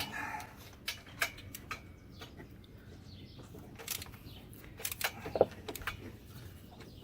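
Scattered faint clicks and metal clinks with a few soft knocks, from tools and header bolts being handled while an exhaust header is fitted under a car.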